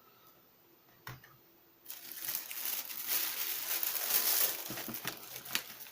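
Packaging crinkling and rustling as hands dig through an unboxed subscription box, starting about two seconds in after a single click.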